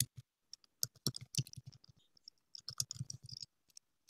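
Typing on a computer keyboard: two quick runs of keystrokes, one about a second in and another about three seconds in.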